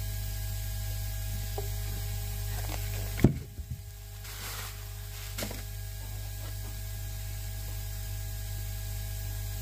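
Handling noise as parts are taken out of a delivery box: faint rustles and clicks, with one sharp knock a little over three seconds in. A steady low hum runs underneath.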